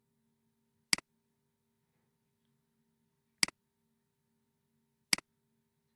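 Three computer mouse button clicks, each a quick press and release: about a second in, then two and a half seconds later, then under two seconds after that. A faint steady low hum lies beneath.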